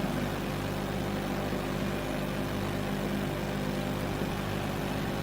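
Steady electrical hum with a low buzz and an even hiss underneath, the background noise of the hall's amplified sound system between phrases.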